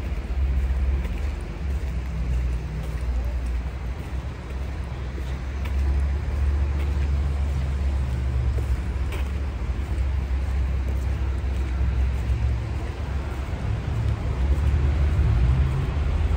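Road traffic: cars passing on a city avenue, a steady low rumble that swells and eases.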